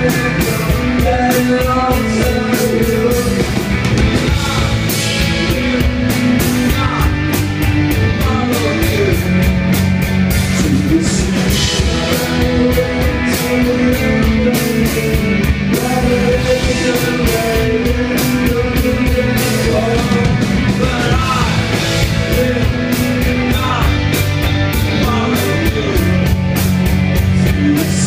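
A rock band playing live and loud: drums, electric guitars and bass in a steady groove, with a male voice singing at times.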